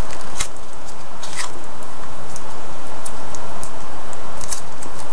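Scattered crinkles and rustles of a plastic pet food pouch and its attached coupon being handled, a few sharp crackles over a steady hiss.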